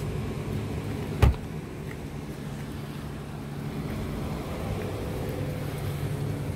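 A car door slams shut once, a little over a second in, over the steady low hum of an idling engine.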